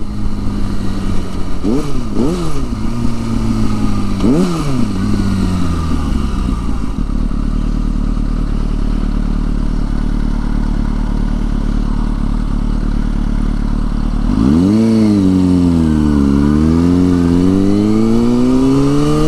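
Sport motorcycle engine with two quick throttle blips about two and four seconds in. The revs then fall to a low steady run while the bike slows through a turn. From about fourteen seconds it accelerates with rising revs, dips at a gear change, and climbs again.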